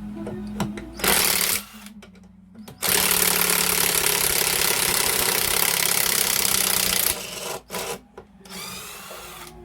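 Cordless power drill running in bursts: a short trigger pull about a second in, a long steady run of about four seconds, then two short pulls near the end, the last with a rising whine as the motor spins up.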